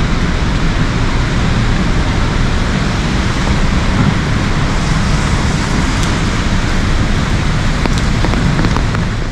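Heavy rain falling in a city street: a dense, steady hiss over a steady low rumble, with a few faint ticks in the second half.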